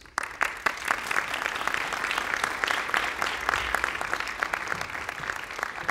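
Audience applauding: many hands clapping together, breaking out suddenly and holding steady.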